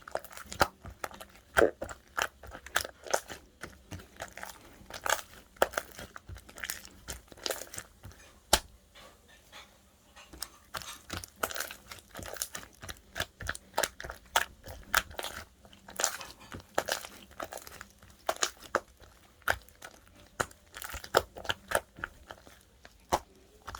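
Slime being squeezed and kneaded by hand, giving irregular sharp pops and crackles from trapped air, several a second, with a quieter stretch about halfway through.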